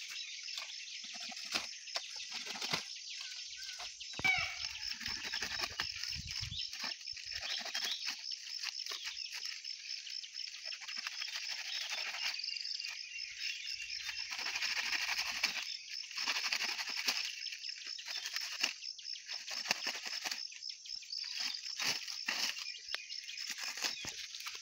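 Dry palm fronds rustling and crackling as they are pushed and arranged by hand, with a steady chorus of insects chirping throughout.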